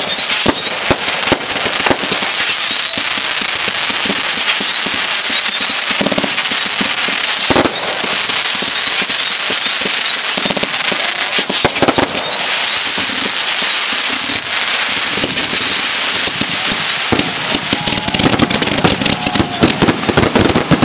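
Aerial fireworks going off in rapid succession: a dense, sizzling crackle of bursting stars punctuated by sharp bangs, with a couple of louder reports partway through and a heavier barrage near the end.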